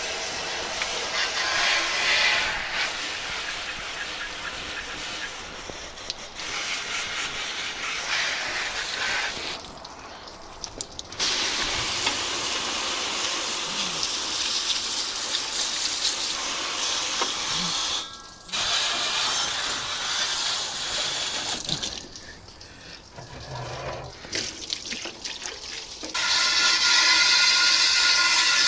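Water spraying onto the grill-smoker's metal, rinsing off oven cleaner. It is a steady hiss that stops or drops several times, briefly about a third of the way in and for a few seconds later on, then comes back louder near the end.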